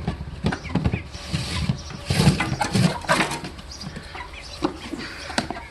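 Chicken feed rattling and clattering as a feeder is refilled, with repeated knocks of the container and a denser rush of rattling a little over a second in that lasts about two seconds.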